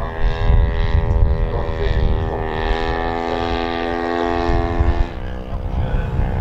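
The DLE 85cc single-cylinder two-stroke gas engine of a 1:3 scale RC Fokker D.VII biplane running in flight: a steady propeller drone that shifts slightly in pitch and drops a little in level about five seconds in, over a low rumble.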